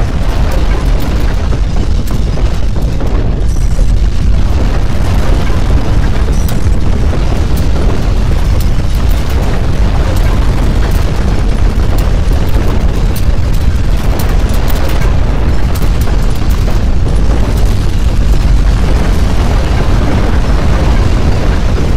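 Loud, continuous low rumble of earthquake shaking, with crackling and rattling running through it and no let-up.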